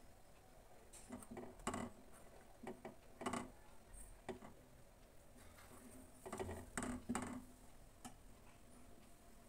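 Faint, scattered scrapes and light taps of a silicone spatula against a stainless-steel saucepan as thickening milk is stirred. The strokes stop near the end.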